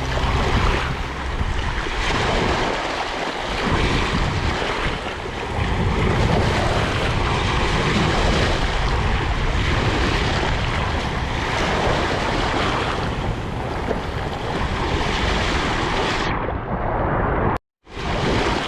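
Sea waves surging and washing ashore: a steady rushing noise that swells and eases every few seconds. Near the end it turns muffled and cuts out for a moment.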